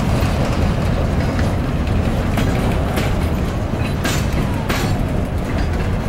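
A cut of freight cars rolling slowly past on the yard track: a steady rumble with a few sharp clacks of wheels over rail joints, the loudest about four seconds in.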